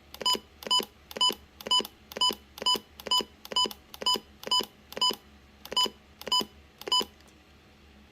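Retekess TR265 weather radio giving a short beep at each button press, about two a second, as its county menu is scrolled through step by step. The beeps stop about seven seconds in.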